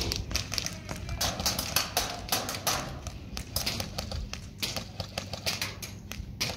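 Airsoft gunfire: irregular sharp clicks and short rapid bursts of shots, with no steady rhythm.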